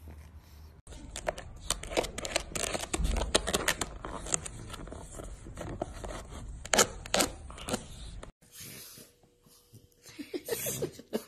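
A French bulldog mouthing and scraping at a plastic frisbee: a busy run of sharp clicks and scrapes, which stops suddenly about eight seconds in.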